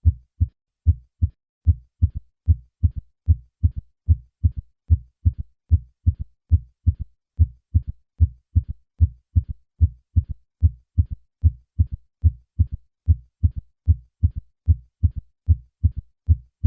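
Low-pitched heart sounds in a steady rhythm. The first beats are plain two-part lub-dub beats; then a faint third heart sound (S3) is added in early diastole just after the second sound, making a three-part "Ken-tuck-y" gallop. The third sound can be normal under 40, but in older patients it suggests left ventricular failure.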